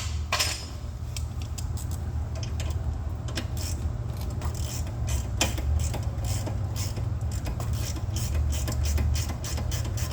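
Irregular light metallic clicks and knocks of hand tools and suspension parts being handled as a control arm is worked into its seat, over a steady low hum.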